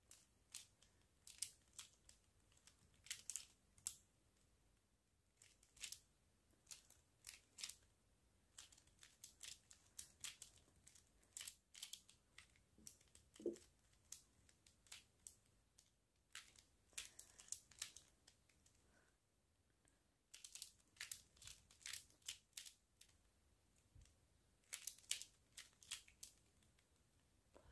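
Faint, irregular plastic clicks and clacks of a 3x3 Pyraminx puzzle being turned by hand, coming in quick clusters with short pauses between them.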